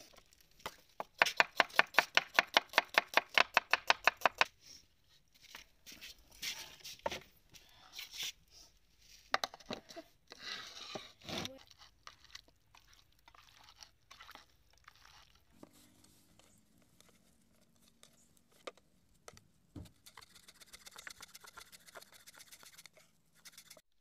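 Knife chopping fast on a wooden cutting board through a red onion, about eight quick strokes a second for a few seconds, then scattered knocks and handling noises, and near the end a fainter run of quick chopping.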